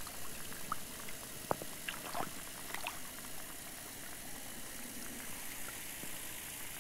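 Underwater ambience: a steady watery hiss with a few scattered bubbling pops and clicks in the first three seconds.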